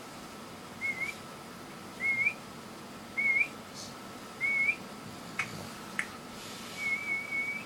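Sleeping pug's nose whistling in rhythm with its breathing: four short, wavy whistles about a second apart, then a longer held whistle near the end. Two sharp clicks come in between.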